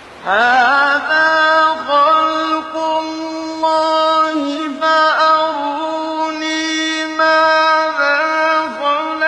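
Quran recitation: one voice chanting long held notes in an ornamented melodic line, sliding briefly in pitch between them.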